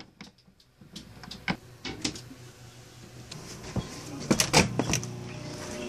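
Doorknob turning and doors being opened, heard as scattered clicks and knocks, with a cluster of sharper knocks about four seconds in as a glass storm door is opened. A steady low hum comes in after that.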